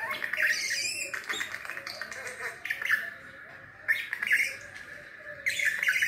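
Budgerigar chattering in sharp chirps and squawks, coming in bursts: loudest in the first second, again around four seconds in, and near the end.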